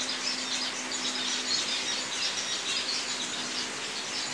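A flock of small caged finches chirping and twittering, many short overlapping high calls with no pause.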